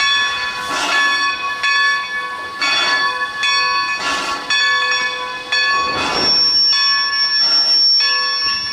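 Steam locomotive bell ringing steadily, struck about once a second, each stroke ringing on under the next.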